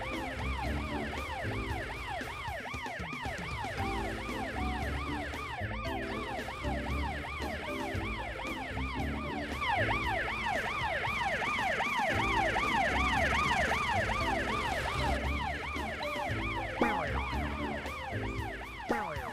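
Cartoon fire truck siren wailing in a fast, continuous up-and-down yelp, several sweeps a second, over background music.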